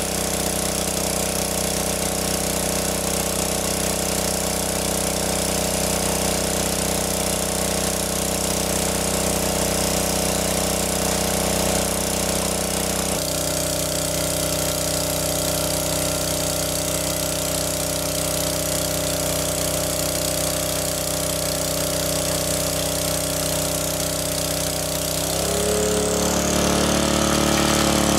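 Small engine of a water pump running steadily, sucking water out of a lake. About three-quarters of the way through, its pitch steps up and it runs a little louder as the engine speeds up.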